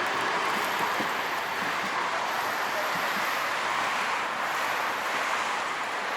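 Steady outdoor city traffic noise, an even wash of sound with no distinct events.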